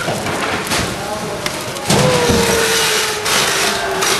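Many people talking at once over the rustle and clatter of food items and bags being handled at plastic bins on a packing line. About two seconds in, a long steady tone starts and slowly falls in pitch until near the end.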